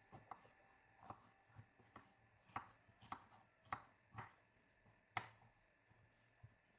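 Kitchen knife chopping a yellow bell pepper on a wooden cutting board: about ten faint knocks of the blade on the board at an uneven pace.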